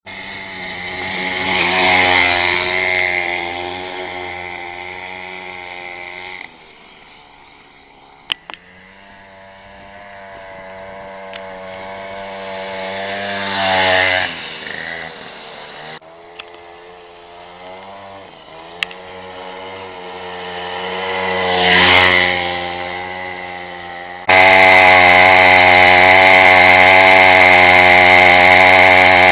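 50cc mini dirt bike engines riding past, the high engine note swelling as each bike approaches and peaking about 2, 14 and 22 seconds in, with abrupt cuts between clips and a few sharp clicks. From about 24 seconds in, a close, loud, steady engine note.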